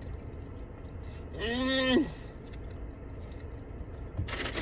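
Close-miked chewing of food, with a short hummed "mmm" of enjoyment about a second and a half in, falling in pitch at its end. A brief rustle near the end.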